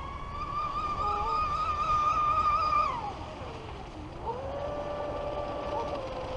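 Traxxas M41 Widebody RC catamaran's brushless electric motor whining at high speed. The pitch holds high, drops sharply about three seconds in, then settles into a lower steady whine.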